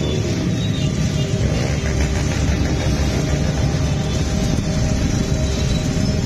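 Motor vehicle engines running steadily in a street convoy, a dense, continuous low drone of traffic.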